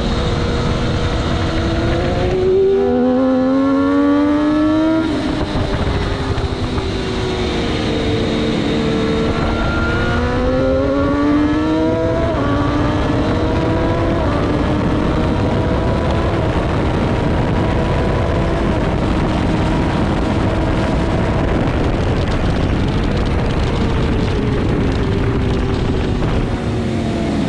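600cc superstock sportbike engine at racing speed, heard onboard. The revs climb through the gears twice, falling back in between, then hold a high, steady note, with wind rushing over the microphone.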